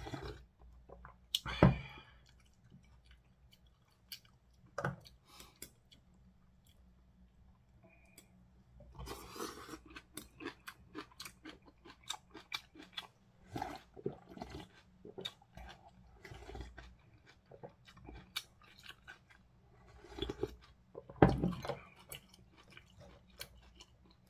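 Close-up chewing of ramen noodles and kimchi, with rapid wet mouth clicks that are densest through the middle. Two short louder sounds stand out, about a second and a half in and near the end.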